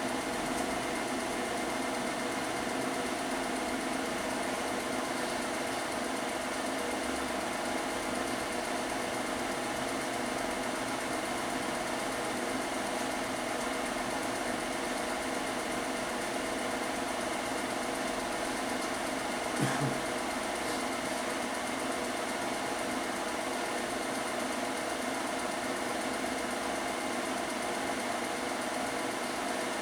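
Film projector running with a steady mechanical hum and whir, with a brief knock about twenty seconds in.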